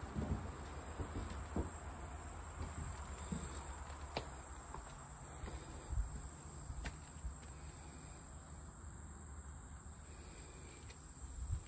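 Steady high-pitched insect trill, like crickets, under a low rumble of wind and handling on the microphone, with a few faint clicks and footsteps.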